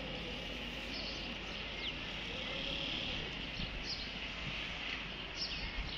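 Steady outdoor insect drone, swelling slightly about three seconds in, with a few faint short high chirps over it.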